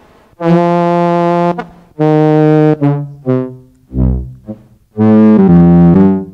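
Physical-modelling flute synthesizer set to a brassy, trumpet-like tone, playing a string of held and short notes at changing pitches, some in a low register.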